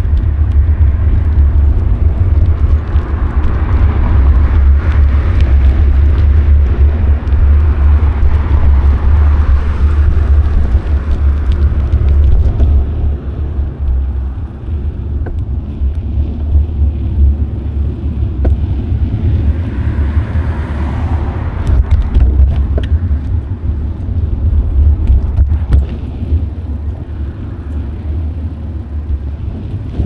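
Wind rumbling on an action camera's microphone while riding a bicycle: a loud, steady low rumble. Road noise swells and fades twice, a few seconds in and again about twenty seconds in.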